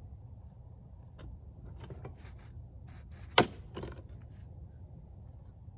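Hand pop-rivet tool being squeezed, with a few soft clicks, then one loud sharp snap about three and a half seconds in as the rivet's mandrel breaks off and sets a standard blind rivet in a metal plate.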